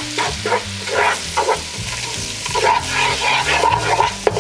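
Spatula scraping around a nonstick pot in repeated stirring strokes, working flour into sizzling butter and onions for a roux. Background music with a low bass line plays underneath.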